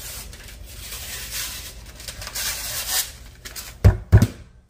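Paper wrapper being peeled and torn off a can of refrigerated biscuit dough, a rustling, crinkling tear for about three seconds. Two short, heavy thumps follow close together about four seconds in.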